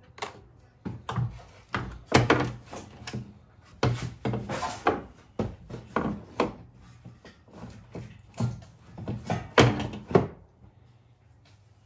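Irregular metallic clunks and knocks as a front strut-and-spring assembly is dropped from its strut tower and worked out of the wheel well. The knocks stop abruptly about ten seconds in.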